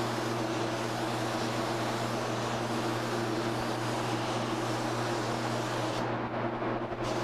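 Spray gun spraying finish: a steady hiss of air over a steady motor hum. The high part of the hiss drops away for about a second near the end.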